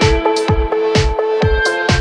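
Electronic dance music with a steady kick drum about two beats a second, off-beat hi-hats, and sustained synth chords.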